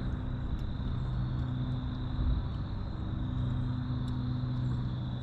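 Steady low hum of an engine running, unchanging throughout, with a thin steady high-pitched tone above it.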